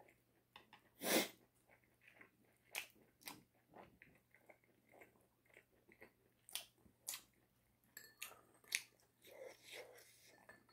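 A person chewing and biting into chicken. There is a sharp bite about a second in, then irregular crunches and clicks of chewing.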